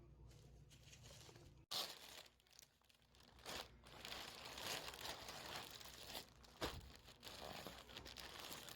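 Packaging crinkling and tearing in irregular bursts, starting after a sharp cut about two seconds in; before it, only a faint low hum.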